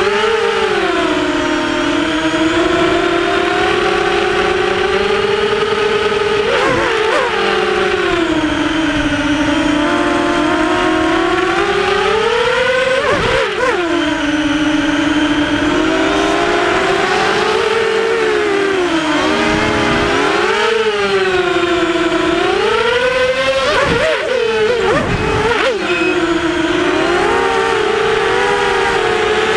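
Sunnysky 2300kv brushless motors of an HMB 235 racing quadcopter whining in flight, heard from on board, their pitch rising and falling with the throttle. The pitch dips sharply and climbs back several times as the throttle is chopped and punched.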